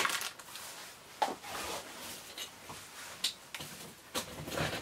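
Plastic toys and packaging being handled: a few scattered light clicks and knocks with soft rustling between them.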